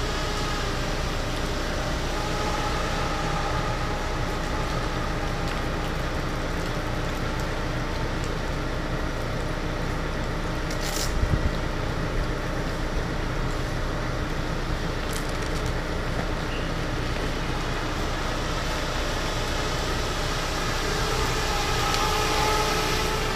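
Mini 250 FPV racing quadcopter's motors and propellers whining, the pitch shifting as the throttle changes, over a steady hiss. A short knock about eleven seconds in.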